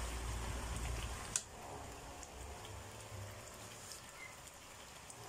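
Thick tomato-based beef stew simmering in a pan, giving off a faint, steady crackle of small bubbles popping. One sharp click stands out about a second and a half in, while the stew is being stirred.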